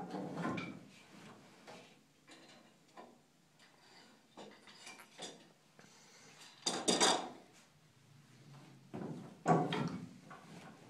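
Wooden knocks and clatter of a Spanish Colonial walking loom weaving jerga twill, its treadles pressed to change the sheds. The clatter comes in several bursts, the loudest about seven seconds in and again near the end.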